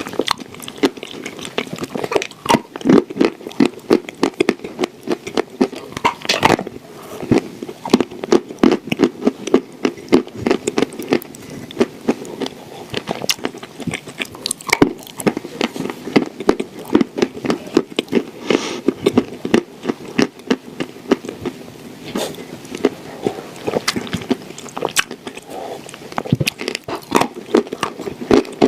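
Close-up chewing of dry clay shortbread cookies: a steady run of many crisp crunches and crackles.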